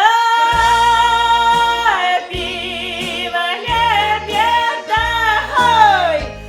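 A woman singing a folk-style song over instrumental backing: she holds one long note with vibrato for about two seconds, then sings shorter phrases, with a steady bass underneath.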